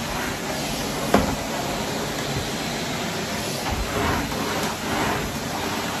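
A Henry cylinder vacuum cleaner running steadily as its floor tool is worked over bedroom carpet, with a single sharp knock about a second in.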